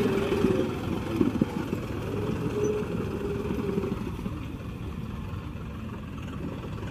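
John Deere 5405 CRDI tractor's diesel engine running under load as it pulls a 10-foot rotavator through a flooded field, churning mud and water. The sound grows steadily quieter as the tractor moves away.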